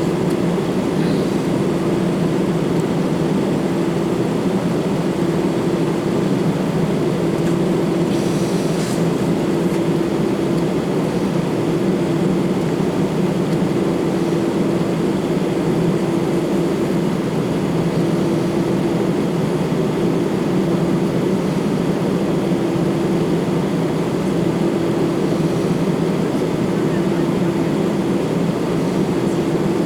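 Airbus A319-112 airliner's jet engines and airflow as a steady drone, with a hum that swells and fades every couple of seconds.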